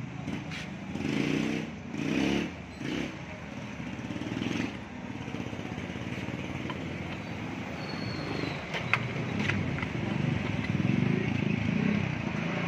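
A motorcycle engine running close by, a steady rough rumble that swells a few times in the first three seconds, with a couple of sharp metal clicks about nine seconds in.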